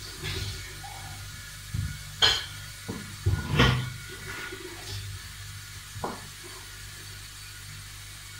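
A few sharp knocks and clatters of kitchen work at the counter, the loudest a little after two seconds and around three and a half seconds in, over a steady low hum.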